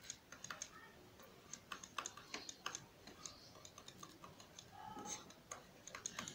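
A stylus writing out an equation: faint, irregular light taps and clicks as each symbol is written.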